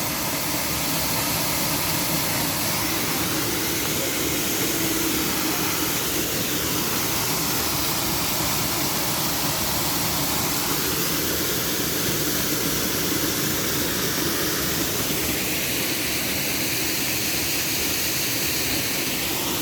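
Düden Waterfall's water pouring down in a loud, steady rush, heard close by.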